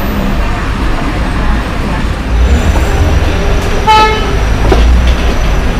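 Steady low rumble of street traffic, with a short vehicle horn toot about four seconds in.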